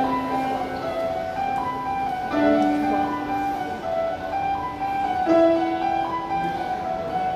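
Background music: an instrumental passage of sustained piano or keyboard notes, with no singing.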